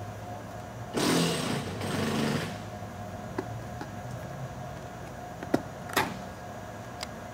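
Handling noise on a Panasonic Toughbook CF-29 laptop, first a noisy burst of about a second and a half in two parts, then a few light, sharp clicks and taps as a screwdriver works at the screws of a plate on the laptop.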